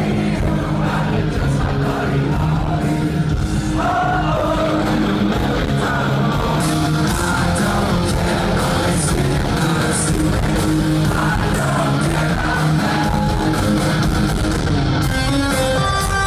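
Rock song with singing and guitar. Near the end the full band gives way to guitar alone.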